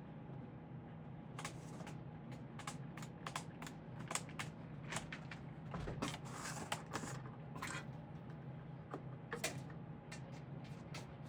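Scattered light clicks, taps and brief rattles of small parts and tools being handled, thickest in the middle, over a steady low hum.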